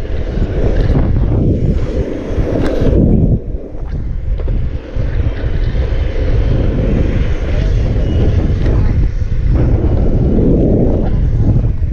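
Wind buffeting the microphone of an action camera moving along the road: a loud, steady low rumble that eases briefly about four seconds in.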